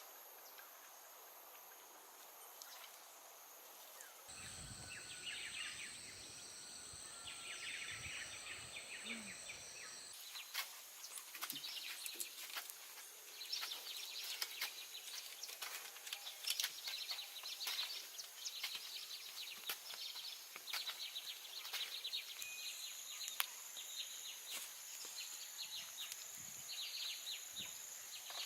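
Faint outdoor ambience of insects shrilling steadily in high, unbroken tones, with bird chirps over them. From about ten seconds in, frequent small clicks and ticks join them.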